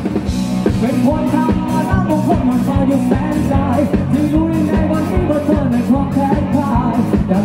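Live rock band playing: electric guitar, bass and drums with a steady beat, and a singer's voice carried over the mix.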